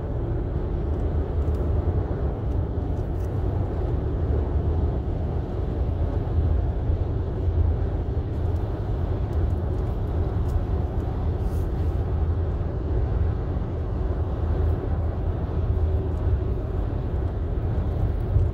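Steady low rumble of road and engine noise inside a car's cabin while it drives along a highway.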